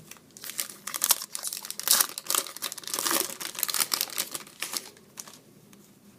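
Hockey card pack wrapper being torn open and crinkled in the hands: a dense crackle of sharp crinkles that fades out near the end.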